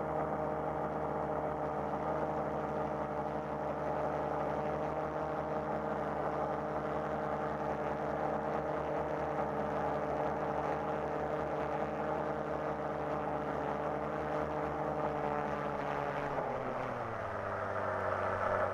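FPV quadcopter's brushless motors and propellers whining at a steady pitch, then dropping to a lower pitch a few seconds before the end as the throttle comes back.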